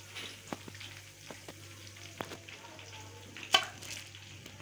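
Faint sizzling and crackling of chicken nuggets frying in oil, with scattered light clicks of a fork and one louder clack about three and a half seconds in, over a low steady hum.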